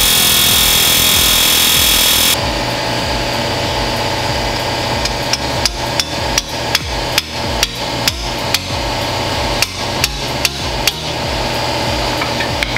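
Pneumatic air hammer firing in one continuous rapid rattle for about the first two and a half seconds, cutting off abruptly, as it drives at the old front strut to free it from its locking collar in the steering knuckle. Then a run of sharp metal-on-metal hand-hammer strikes, about three a second, over a steady mechanical hum.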